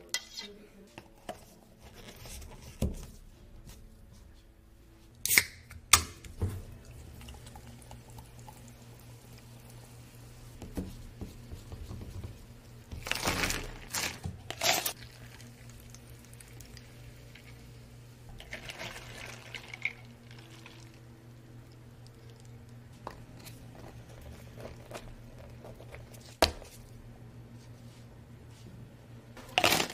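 Drinks being made at a shop counter: liquid poured into cups, with a longer pour about halfway through, and short knocks and clatters of cups and utensils now and then. A steady low hum runs underneath.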